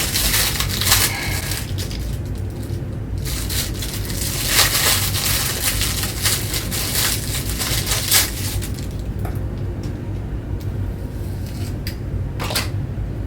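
Several short scraping, rustling handling noises over a steady low hum.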